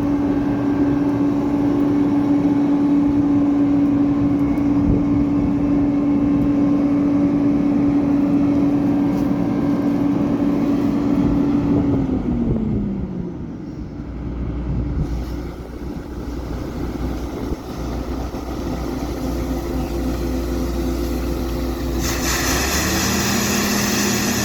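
Engine of harvest machinery running steadily under load. About halfway through its pitch falls as it throttles down to a lower rumble, and near the end a higher hissing machine sound joins in.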